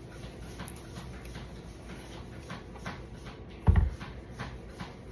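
Knife cutting into a melon, a string of faint short clicks and scrapes, with one loud low thump a little past halfway through.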